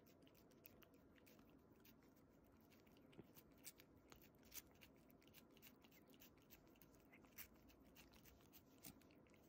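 A cat licking Churu puree from a squeeze pouch: faint, irregular wet clicks and smacks of its tongue, a few louder than the rest.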